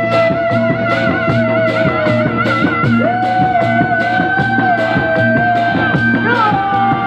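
Live Sundanese bangreng music: drums keep a steady beat under a long held, wavering melody note that moves to a new pitch twice.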